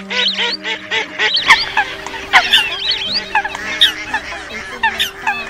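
A flock of waterfowl calling at once, a dense overlapping chorus of honks and squawks with no pause, and a low steady hum beneath. This is a composite lure recording of coot, wild duck, garganey and lesser whistling duck calls, made for trapping migrating birds at night.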